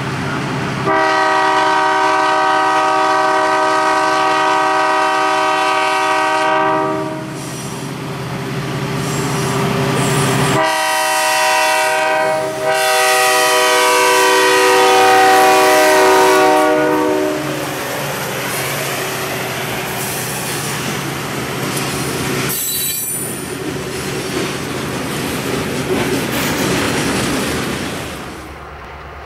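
Horn of Toledo, Peoria & Western diesel locomotive 4056 sounding a chord of several notes in two long blasts, the second briefly broken. Afterwards comes the steady rumble of the locomotive and its freight cars rolling past.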